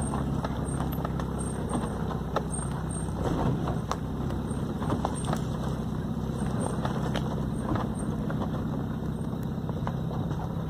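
A vehicle's engine running steadily at low speed, with scattered clicks and snaps of the tyres rolling over leaf litter and twigs on a dirt track.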